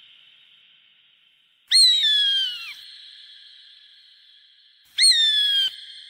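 Hawk screaming twice, each a loud, high, slightly falling scream under a second long, the second about three seconds after the first, each trailing off in a long fading echo.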